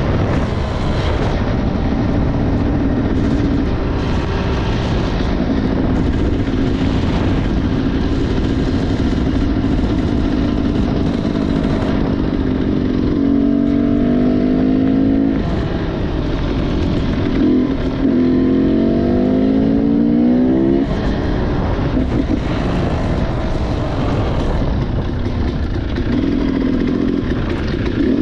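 Motorcycle engine running under way, with a steady rushing noise beneath it. About halfway through, the engine note climbs twice as the bike accelerates, each climb lasting two to three seconds.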